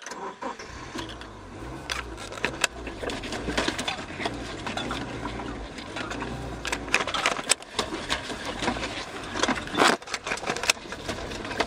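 Cabin sound of a 1999 Subaru Forester's 2.5-litre flat-four driving a rough dirt trail: a low engine drone under steady body rattles and knocks from the bumps, with sharper knocks about seven and ten seconds in. The engine won't idle and is only just being kept running, which the driver puts down to the ignition coil.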